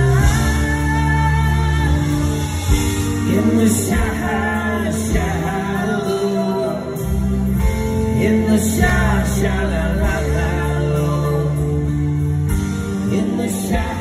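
Live concert music from the audience: a full band with guitars and drums playing while singers hold long sung notes.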